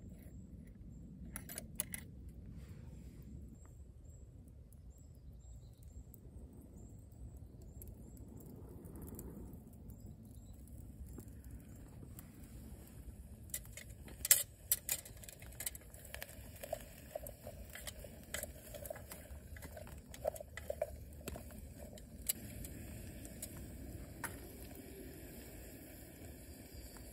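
Small wood campfire under a hanging steel billycan: a low steady rumble, then sharp pops and crackles from about halfway through as the flames catch, with a few light metallic clinks.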